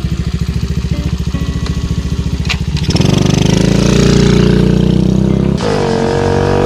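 Honda CB400Four's air-cooled inline four-cylinder engine running. It idles with an even pulsing exhaust, is revved up about three seconds in, and shifts abruptly to a steadier held note near the end.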